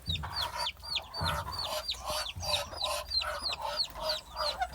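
Chickens clucking, with a quick run of high, falling peeps about four a second.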